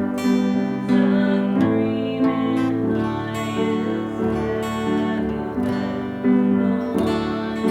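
Acoustic guitar music, strummed chords in an unhurried rhythm.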